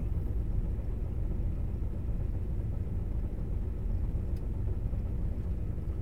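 Claas Lexion 730 combine running steadily with its threshing unit and corn header engaged: an even, low rumble.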